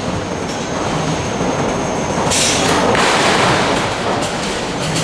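Steady, loud industrial din of a forge shop: machinery rumble and clatter with hiss, and a brief burst of sharper hiss a little over two seconds in.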